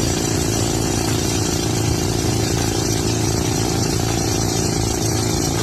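A vehicle engine running steadily at an even, idle-like speed.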